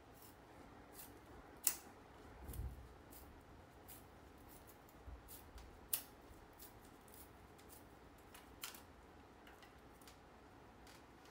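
A hand blade shaving a split bamboo strip, paring away the white inner layer to leave only the green skin for a bamboo strip: faint, irregular scraping and clicking, with two sharp ticks, one about a second and a half in and one about six seconds in.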